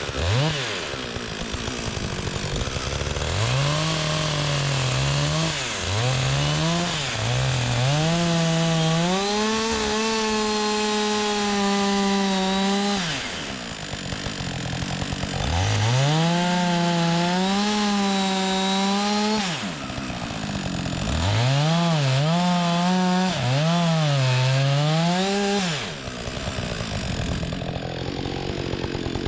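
Chainsaw revving up and cutting into a log in three long passes of several seconds each, the engine pitch sagging under load and dropping back toward idle between cuts.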